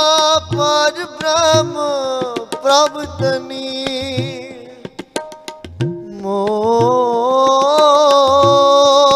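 Sikh shabad kirtan: a male voice sings long, drawn-out wordless notes over harmonium, with tabla strokes underneath. Around the middle the voice drops away and the tabla strokes stand out. The singing then swells back in on a long held note.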